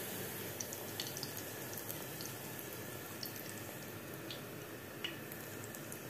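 Battered hake fillets frying in hot oil in a pan over low heat: a steady sizzle with scattered small crackles and pops.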